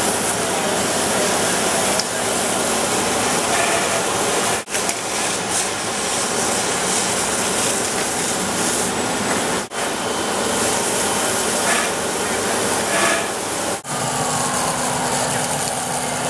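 Fire hose nozzles spraying water fog onto a burning propane gas grill and its venting tank: a loud, steady hiss, with a low engine hum underneath, broken by three brief drops.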